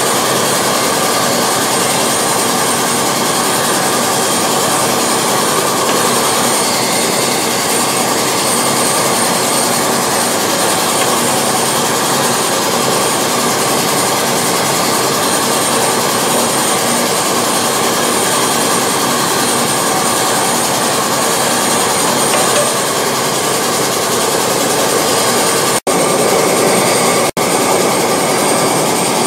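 Aluminum melting furnace's burner firing steadily: a constant rushing noise with a faint high whine over it. It cuts out briefly twice near the end.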